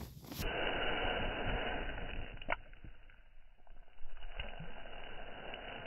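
Lake water sloshing and lapping around a hand holding a tiger trout underwater for release, with a couple of small sharp ticks, one about two and a half seconds in and another a little after four seconds.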